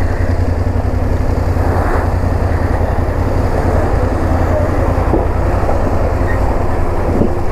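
Steady low rumble of a motorcycle engine at low speed, with a heavy lorry's engine passing close alongside, over a continuous noisy wash from tyres in muddy running water.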